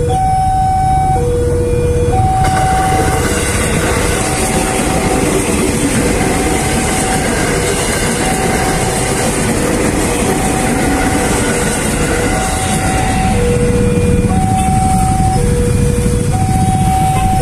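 Railway level-crossing warning alarm repeating a high and a low tone in turn, each lasting under a second. From a couple of seconds in, a KRL electric commuter train passes with a steady rush of wheels on rail. Near the end, motorcycle engines join in as riders cross the tracks.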